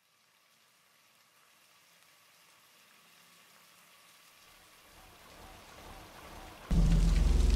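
Near silence, then a faint hiss that slowly rises. Shortly before the end a loud low hum with hiss cuts in abruptly.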